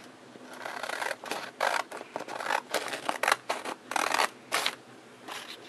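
Scissors cutting through stacked sheets of paper in a quick run of short, crisp snips. The snips stop about a second before the end, with one faint snip after.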